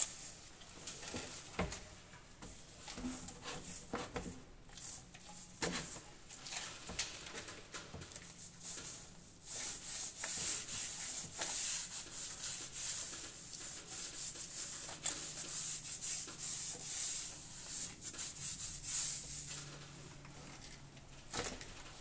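Paintbrush bristles rubbing back and forth over a wall as paint is brushed on. A few light knocks and taps come in the first several seconds, and the brushing becomes steadier and louder about halfway through.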